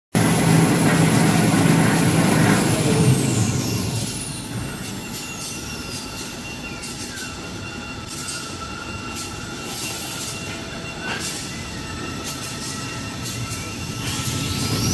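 Kitchen towel and toilet paper rewinding line running: steady machinery noise with electric motors whining. A high whine falls in pitch a few seconds in as the noise drops, then rises again near the end, with a few light clicks in between.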